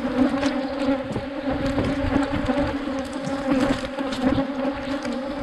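Many Africanized honey bees buzzing around an open hive in a steady, dense drone.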